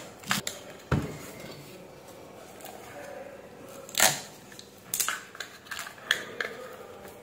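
Clicks, taps and knocks of a monitor's power supply board being handled on a workbench, a small tool working at its large filter capacitor, with the loudest knock about four seconds in and a quick run of smaller clicks after it.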